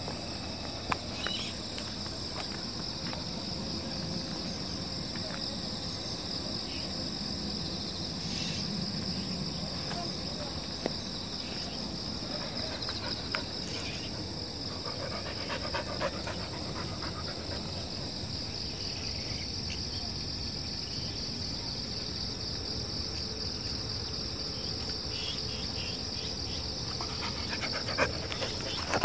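Steady high trilling chorus of insects in roadside grass, with a few sharp clicks along the way.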